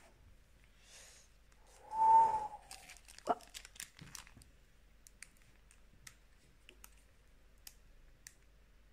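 Foil Pokémon booster pack crinkling and crackling in the hands as it is handled and opened, in small sharp ticks. About two seconds in, a brief loud whistled tone is the loudest sound.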